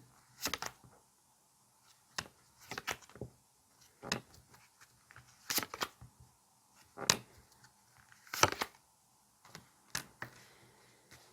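Tarot cards being handled and shuffled: a string of short, sharp card snaps and rustles at irregular intervals, about one a second.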